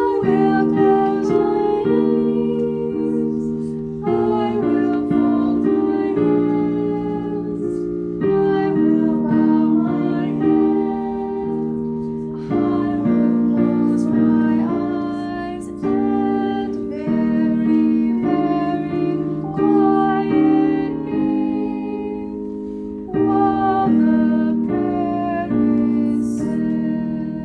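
Piano playing a slow, gentle song melody over chords. Each phrase starts with a fresh strike of the keys and then fades away.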